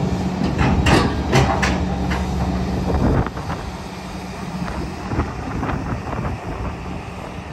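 Liebherr R 944 demolition excavator running, its diesel engine and hydraulics working as the boom lifts and the upperstructure slews. Several sharp knocks come in the first three seconds, then the machine's sound drops and runs quieter about three seconds in.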